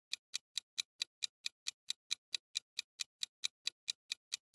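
Clock-style ticking sound effect of a quiz countdown timer: short, evenly spaced ticks, about four to five a second.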